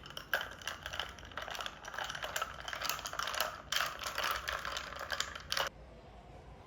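Typing on a keyboard: a fast run of key clicks, with a short break about three and a half seconds in, stopping abruptly just before six seconds.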